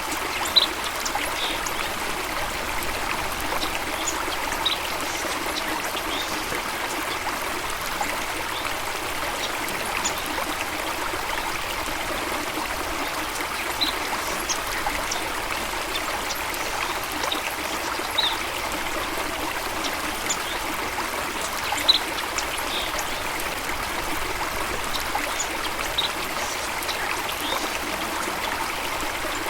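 Stream water running and trickling steadily, with brief high-pitched pips scattered through it, the most prominent about half a second in and about 22 seconds in.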